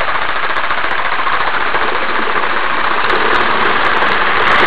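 Home-made electric kayak motor running on 12 volts, spinning its propeller on a whipper-snipper drive shaft down in a tub of water: a loud, steady mechanical whir mixed with water churning.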